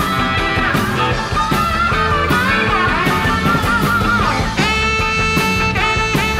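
Live rock'n'roll band playing an instrumental break: a lead line with bending, wavering notes over a driving drum beat and bass, settling into long held notes about two-thirds of the way through.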